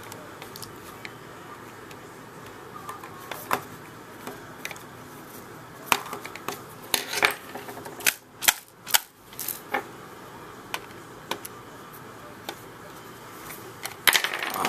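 Scattered small clicks and scrapes of a Torx T8 screwdriver working at a stubborn screw in a plastic Xbox 360 controller shell. There is a quick run of sharper clicks in the middle and another near the end.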